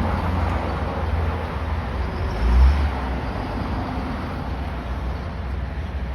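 Engine of a heavy machine running with a steady low rumble, with a brief heavier low thump about two and a half seconds in.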